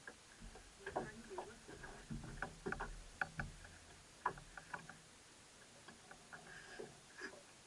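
Irregular light knocks and clicks of gear being handled in a small boat, thickest in the first half and thinning out towards the end, with no engine running.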